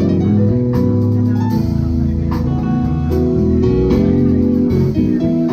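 Live gospel band playing: held keyboard chords that change every second or so, over drums with cymbal hits and bass guitar.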